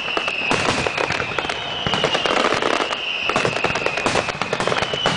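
Aerial fireworks going off in quick succession: a dense run of bangs and crackles, with a steady high whistle-like tone underneath.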